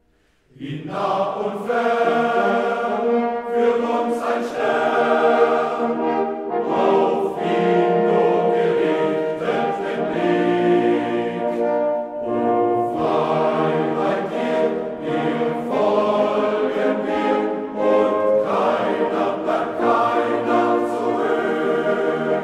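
Men's choir singing with a French horn quartet in sustained chords. The music comes back in after a brief silence about half a second in.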